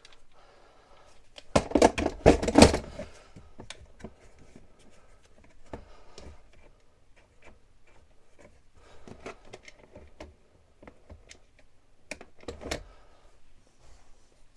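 Cordless power tools and batteries being packed into a plastic tool box: a clatter of hard plastic clicks and knocks, loudest about two seconds in and again near the end, with lighter clicks between.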